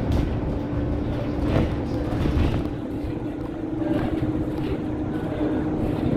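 Scania K230UB city bus heard from inside the passenger cabin while under way: its 9-litre five-cylinder engine and drivetrain make a steady drone with a constant hum over a low rumble. A few brief knocks and rattles sound through it.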